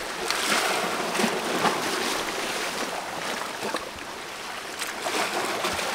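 Sea surf washing against the rocks, a steady rushing noise, with a few faint clicks over it.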